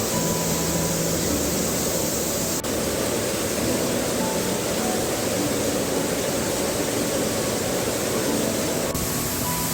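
Steady, loud rush of a waterfall running full after heavy rain, with a brief dip about two and a half seconds in.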